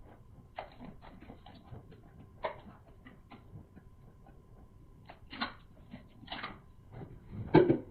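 Close-miked eating sounds of a person eating boiled sea whelk: wet chewing and mouth sounds with small clicks. There are three louder wet bursts in the last three seconds.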